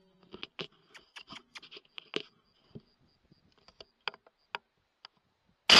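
A single rifle shot from a .300 AAC Blackout rifle near the end, very loud and sharp. It comes after several seconds of faint scattered clicks and ticks.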